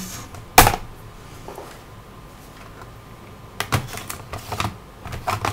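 Clicks and knocks of a laptop's plastic case and its optical drive being handled as the drive is worked loose from its bay. There is one sharp click about half a second in, then a quick run of smaller clicks near the end.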